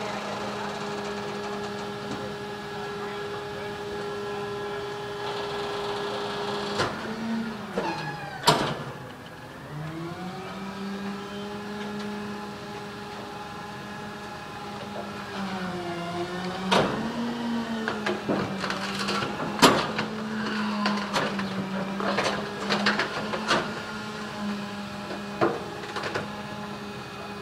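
Rear-loading garbage truck's engine running steadily for the hydraulic packer, its pitch dipping twice and recovering as the compactor takes load. Sharp cracks and snaps of couch frames breaking in the hopper come throughout, thickest in the second half.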